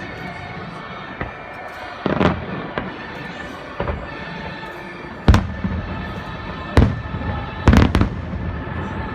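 Fireworks shells bursting with several sharp booms, the loudest about five seconds in and a close double near the end, over steady background music.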